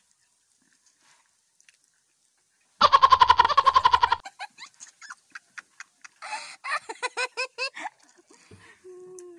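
Two girls laughing: a loud burst of laughter about three seconds in, then scattered giggles and a second run of quick, rhythmic laughs.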